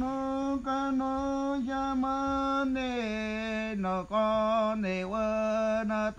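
A single voice chanting in long held notes with short breaks between phrases, the pitch stepping down about three seconds in.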